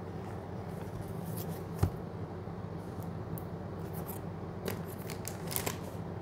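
Cardboard ice-cream box and the cone's paper sleeve being handled: scattered crinkling and scraping, with one sharp click a little under two seconds in, over a steady low hum.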